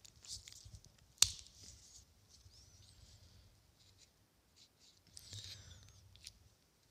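A sharp click about a second in, then faint rubbing and a thin high squeak as a flux pen's tip is dabbed on a printed circuit board.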